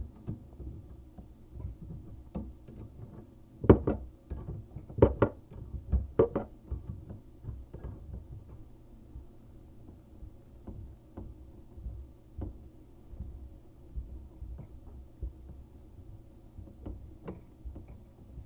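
Four sharp knocks about four, five and six seconds in, with faint scattered clicks and a low hum through the rest.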